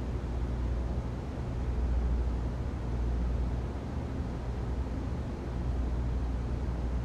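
Ventilation system noise: a steady airy hiss over a deep, even rumble, swelling and easing slightly every couple of seconds.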